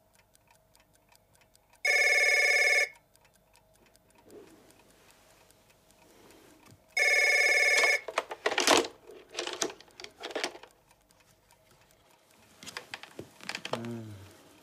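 A telephone ringing twice, each ring about a second long and about five seconds apart. After the second ring come knocks and rustling as it is picked up and handled, then a short voice sound near the end, with faint, even ticking in the background.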